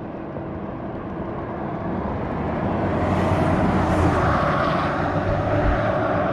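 A vehicle passing close by on the road: tyre and engine noise swells over the first three seconds, peaks about four seconds in, then eases a little.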